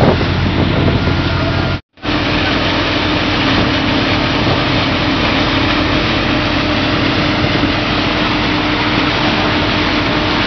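Steady machinery noise with a constant hum from a fishing vessel's fish-handling equipment, as fish pour down a stainless-steel chute into a hopper. The sound breaks off briefly about two seconds in, then runs on evenly.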